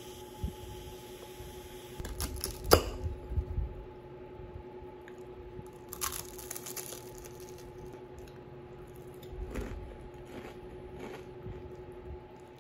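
Steady faint hum under scattered handling noises: small knocks, clicks and rustles, with the loudest sharp knock about three seconds in.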